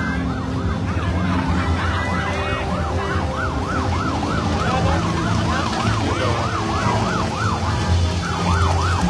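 Electronic siren sounding a rapid yelp, its pitch swinging up and down about three times a second, with a short break near the end. A steady low hum from traffic or engines runs underneath.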